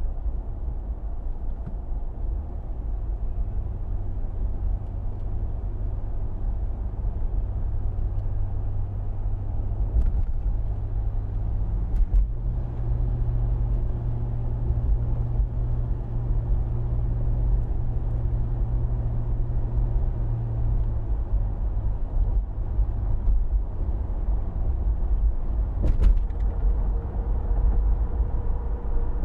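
SUV driving on a local street: steady low engine and road rumble. The engine note steps up about twelve seconds in, and a few sharp knocks come through.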